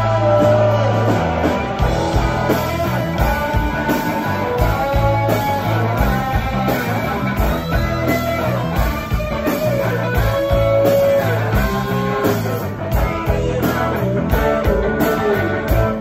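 Rock band playing live: electric guitars over bass guitar and drums, loud and continuous.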